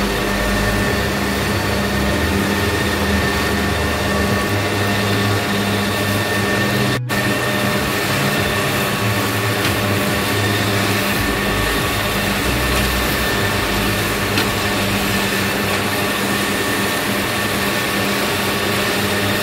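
Tractor engine working under load with a New Holland H7230 disc mower-conditioner running behind it, mowing grass after its bearing was replaced, heard from inside the cab as a steady drone with a constant whine. The sound drops out for an instant about seven seconds in.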